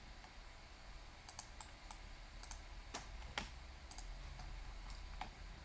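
Scattered clicks of a computer mouse and keyboard, about a dozen at irregular intervals.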